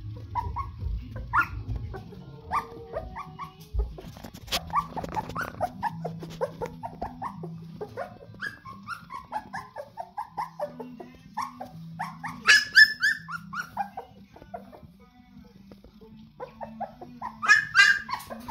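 A litter of 19-day-old golden retriever puppies whimpering and squeaking in many short, overlapping high cries. Louder bursts of yelping come about twelve seconds in and again near the end.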